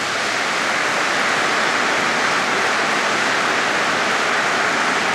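Large audience applauding, a dense and steady clapping.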